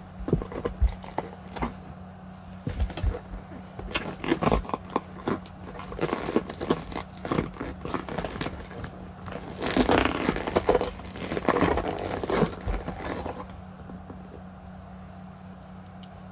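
Mitsuuma black glossy rubber boots squeaking and scraping in irregular bursts as they are rubbed together, flexed and worked off the feet; the rubbing stops about 13 seconds in.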